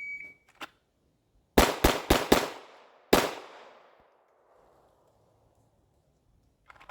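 Electronic shot timer gives a short start beep, then about a second and a half later a Glock pistol fires five shots: four in quick succession and a fifth after a brief pause, each trailing off in echo.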